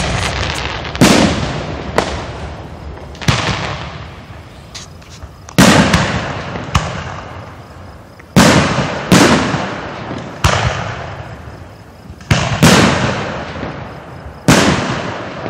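Aerial fireworks shells bursting at close range: about ten sharp, loud booms at uneven intervals of roughly one to two seconds, each trailing off in a long rolling echo.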